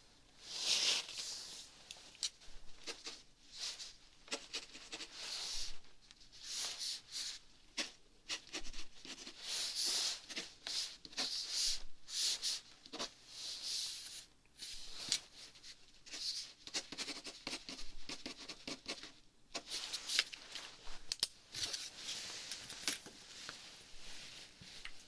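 Close-miked crinkling and scratching sounds in irregular runs of quick crackles, with short pauses between runs.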